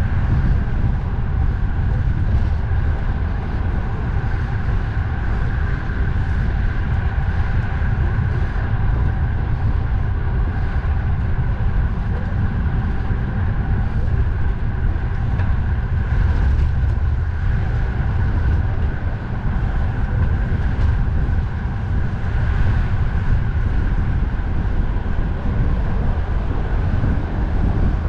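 Steady, heavy wind rumble on the microphone of a cyclist riding at speed, over a constant hum of road traffic.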